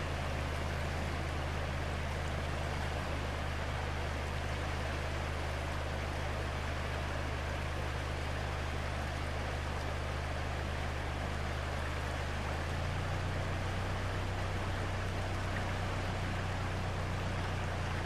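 Hoh River flowing past the bank as a steady, even rush of water, with a steady low hum underneath that shifts slightly about two-thirds of the way through.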